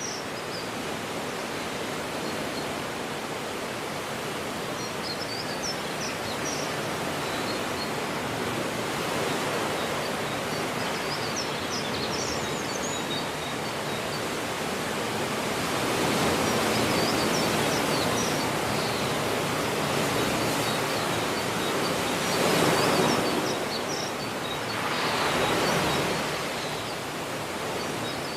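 Ocean surf washing steadily on a shore, with waves swelling louder about halfway through and twice more near the end. Birds chirp faintly now and then.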